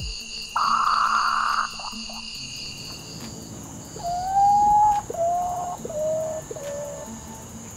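Common potoo calling: one long mournful whistle that rises slightly, then three or four shorter whistles, each a little lower, in a falling lament. Steady high insect trills run behind it, and a loud one-second hiss comes near the start.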